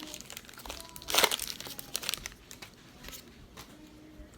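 Crinkling of a foil trading-card pack wrapper as it is handled, with a louder rustle about a second in and fainter rustles after.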